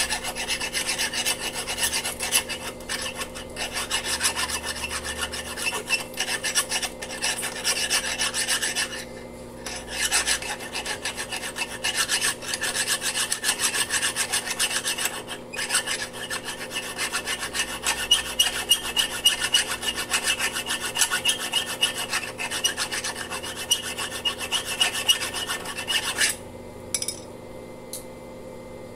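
A hand file rasps against the freshly welded steel of a motorcycle's passenger footpeg mount, levelling the built-up weld. The scraping is continuous, with a short pause about nine seconds in, and it stops shortly before the end.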